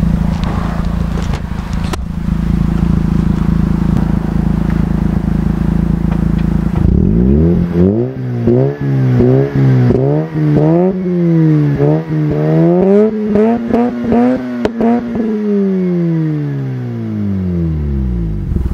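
Mazda RX-8's 1.3-litre twin-rotor Wankel engine, heard at the tailpipe through an aftermarket exhaust system. It idles steadily for several seconds, then is blipped in a quick series of short revs. Near the end it takes one longer rev that falls slowly back toward idle.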